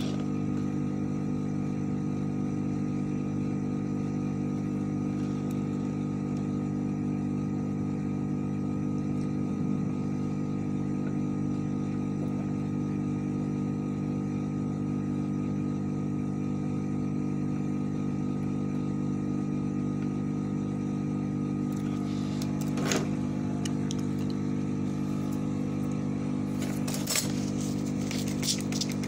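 Steady electrical hum of workbench equipment at an electronics repair bench, unchanging throughout. Near the end come a few brief clicks of small tools.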